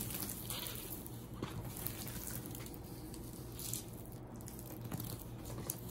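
Hands brushing and smoothing over a large unrolled diamond painting canvas, giving a few soft swishing rustles over a steady low hum.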